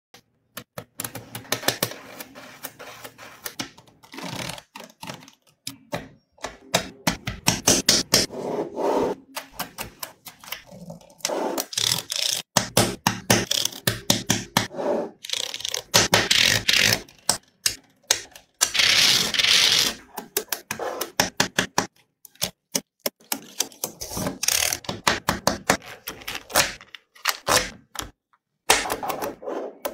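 Small magnetic metal balls clicking and clattering as they snap together and are pressed into place by hand, in rapid runs of sharp clicks with short pauses between.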